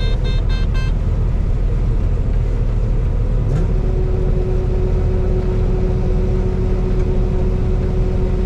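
Combine harvester running steadily while harvesting soybeans, heard as a constant low drone from inside the cab. Four short electronic beeps sound in the first second, and a steady hum tone joins the drone a little under four seconds in.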